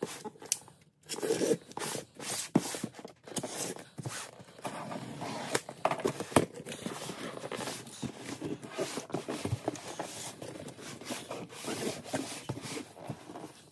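Cardboard shipping box being opened by hand: scraping and rustling of the box and its packing tape, with irregular clicks and taps as it is turned on the bench and its flaps are pulled open.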